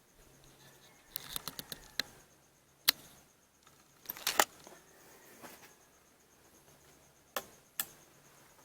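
Scattered sharp mechanical clicks and clacks from handling a bolt-action .22 rifle. There is a quick run of small clicks about a second in, then single clacks, the loudest cluster around four seconds in, and two more clicks near the end.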